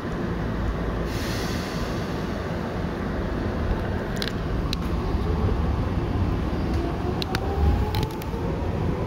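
Tokyu 8500 series electric commuter train heard from inside the car, seated over the air compressor: a steady rumble with a brief hiss about a second in and several sharp clicks, then a faint rising whine from the Hitachi traction motors starting about six seconds in as the train picks up speed.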